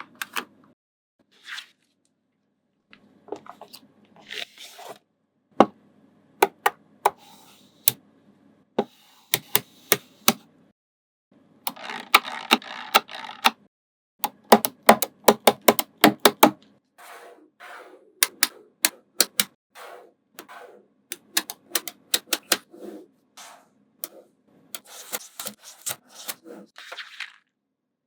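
Small magnetic balls clicking and snapping together as they are built up: sharp single clicks, fast rattling runs of clicks about halfway through, and some stretches of scraping and rubbing between.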